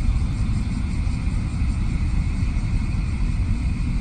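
A Shinkansen bullet train running past on a viaduct: a steady low rumble with a faint higher hiss above it.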